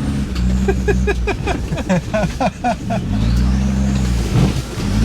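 A Land Rover Discovery's engine running and revving hard off-road. Its pitch climbs near the start and again in the second half. In between, about half a second to three seconds in, comes a quick run of short rising squeaks, about four a second.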